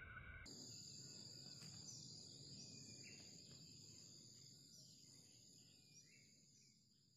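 Faint forest ambience: a steady high insect drone with a few short bird chirps, fading out near the end.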